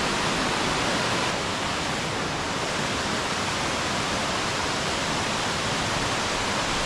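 Waterfall rushing, a steady, even roar of falling water close by, with no breaks.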